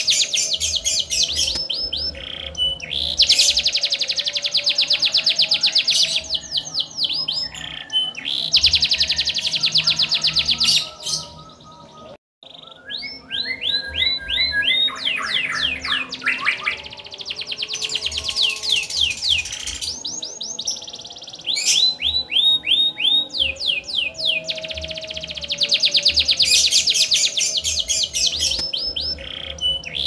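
Domestic canary singing a long, continuous song of fast rattling trills and runs of repeated falling whistled notes, with a short break about twelve seconds in.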